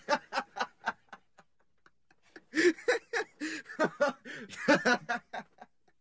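A person laughing in quick chuckling bursts: a short run that trails off in the first second, then after a pause a longer, louder run of laughter.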